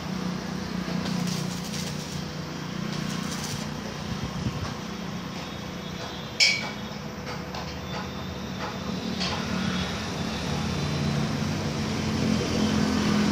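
A steady low hum runs under light scraping and clicking as hands work along a steel gate frame of square tubing. About six seconds in comes a single sharp metal clink with a short ring.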